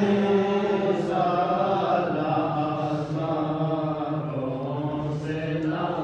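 A man's voice chanting a devotional recitation in long, drawn-out notes that bend slowly in pitch.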